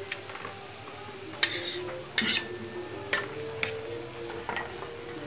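Metal spatula stirring and scraping food around a steel frying pan over heat, with a light sizzle. Two loud scrapes come about one and a half and two seconds in, followed by a few sharper clicks of the spatula against the pan.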